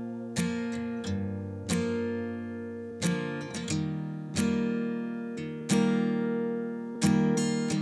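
Background music: an acoustic guitar strumming chords about once a second, each chord ringing and fading before the next.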